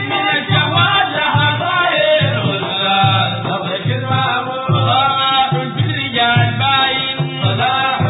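Sudanese Sufi madeeh, a praise song for the Prophet: a chorus of men chanting over large hand-beaten drums. The drums keep a steady beat.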